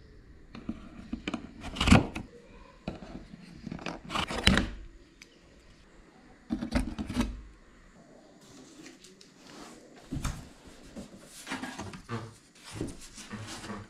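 Hands turning the plastic twist-lock fasteners on a cardboard Canyon bicycle shipping box and lifting its lid: a series of knocks, clicks and cardboard scrapes, loudest about two and four and a half seconds in.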